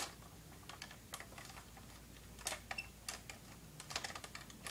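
Faint, irregular clicks and light knocks of the plastic shell and parts of a Robot 2001 toy robot being handled and fitted together by hand.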